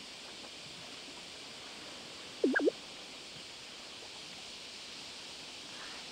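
Steady hiss of wind and sea at the shore. About two and a half seconds in comes one brief, louder squeaky sound whose pitch swoops up and down twice.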